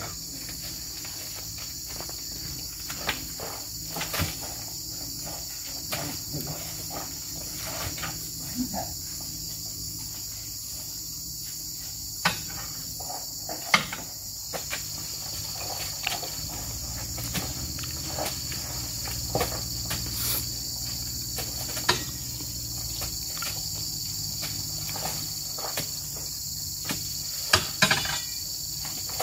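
Scattered dull thuds and knocks as oil palm fruit bunches are speared with a pole and thrown onto a truck's bed, over a steady high insect chorus. The loudest knocks come about halfway through and as a cluster near the end.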